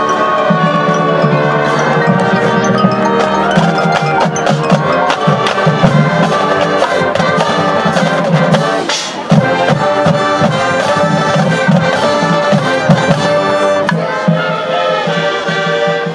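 Marching band playing its field show: brass with percussion, including many sharp strikes. About nine seconds in, the sound drops briefly before the full band comes back in.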